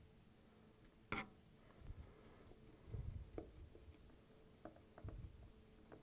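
Faint clicks and soft knocks as screws and a screwdriver are handled on a plastic junction box cover. There is a sharper click about a second in and a few low taps later.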